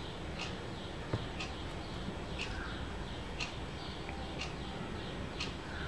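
A bird chirping in the background, short high chirps repeating evenly about once a second over a low steady hum, with one small click about a second in.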